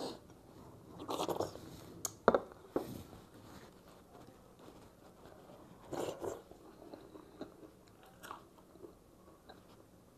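A person eating close to the microphone: wet chewing and biting with crunches and sharp mouth clicks, coming in irregular bursts about a second in and again around six seconds in.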